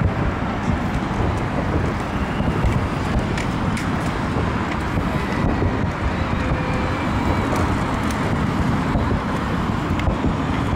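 Fireworks salute firing in quick succession: the booms of bursting shells merge into a continuous deep rumble, with occasional sharp cracks.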